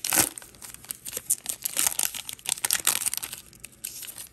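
Foil trading-card pack (Panini Select FIFA) crinkling and tearing as it is ripped open by hand: a dense run of sharp crackles, loudest at the very start, dying down in the last second.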